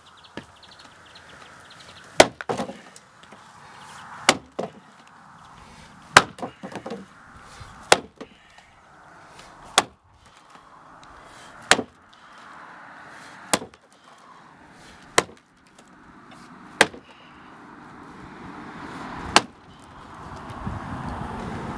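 Underhand chop: an axe striking a horizontal log underfoot, about ten sharp chopping blows roughly every two seconds, some followed by small clicks of chips. A low rushing noise builds up near the end.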